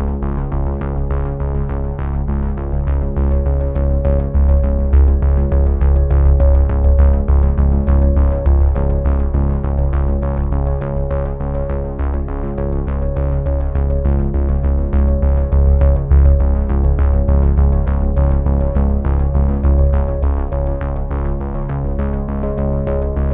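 Background music: synthesizer and keyboard tones held over a heavy bass, with a quick, steady beat.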